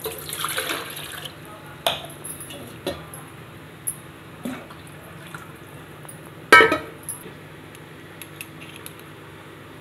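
Water poured into a cooking pot for about the first second, then scattered metal clinks and knocks of pots and utensils. The loudest is a ringing clang about six and a half seconds in.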